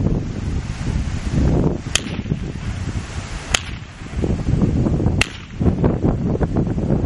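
Wind buffeting the microphone in gusts, broken by three sharp snaps about a second and a half apart.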